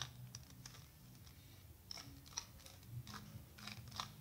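Isaev's Fused Bi Clock, a bandaged 3x3 twisty puzzle, being turned by hand through a face-turn algorithm: a run of faint, irregular plastic clicks as its layers are turned.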